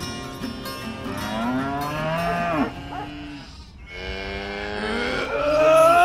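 A cow mooing twice in long, drawn-out calls. The first comes about a second in; the second starts partway through and is louder toward the end.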